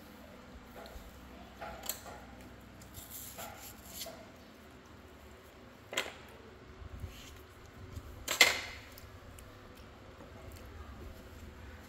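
Two monkeys eating peeled mango: scattered soft mouth and handling noises from the fruit. There is a sharp click about six seconds in, and a louder short noise a little after eight seconds.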